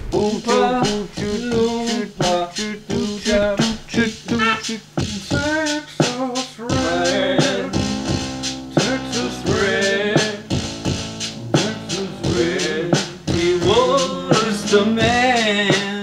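Music: a drum-machine beat playing back from a TEAC A-3440 reel-to-reel tape machine dropped to half speed, so it comes out slowed and pitched down, with keyboard lines played over it. The pitched lines bend and glide.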